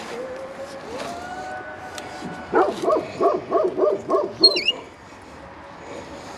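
A dog barking: a quick run of about seven barks, some three a second, starting a couple of seconds in.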